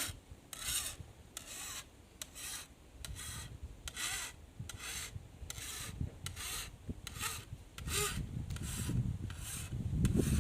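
Hand file rasping along the steel edge of a cane knife blade in repeated short strokes, about one and a half a second, sharpening the edge. A low rumble grows under the strokes near the end.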